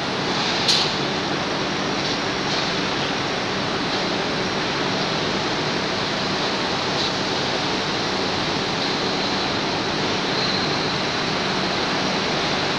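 Steady machinery noise of a bottling plant's palletizing line, with a faint hum and whine, and a single sharp mechanical clack about a second in.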